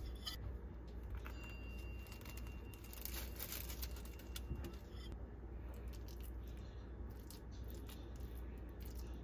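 Crinkling and rustling of paper and wrapping as a sandwich is assembled on parchment paper, a cheese slice laid on toast and tuna filling spooned on, over a steady low hum.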